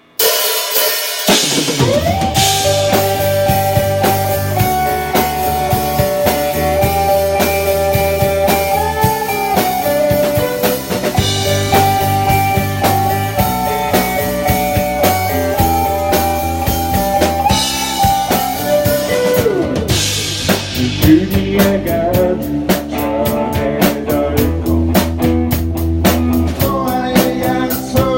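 Band playing an instrumental intro: a held saxophone melody over electric bass and drum kit with rimshots, the drums growing busier about two-thirds of the way through.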